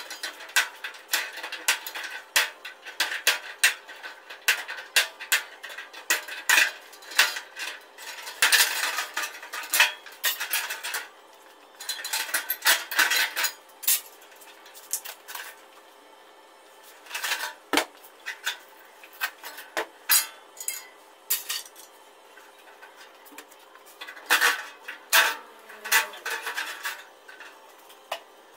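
Copper refrigerant pipework on an air-conditioner outdoor unit being cut with hand snips and bent and pulled loose by hand: a dense run of sharp metallic clicks and clinks, coming in clusters with a few short pauses.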